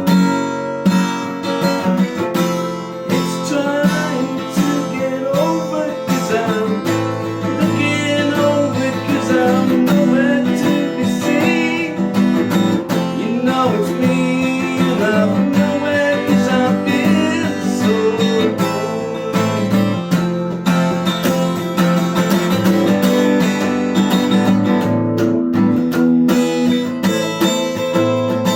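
Lâg HyVibe acoustic guitar strummed and picked with its built-in effects, sustained ringing chords. Short wavering high warbles come and go over the chords through the middle.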